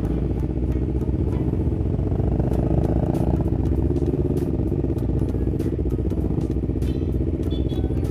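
Kawasaki Ninja 250 FI parallel-twin engine running as the motorcycle rolls off at low speed, its note rising slightly about three seconds in.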